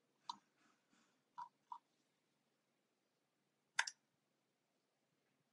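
Near-silent room with a few faint, short clicks, three in the first two seconds and a sharper one about four seconds in.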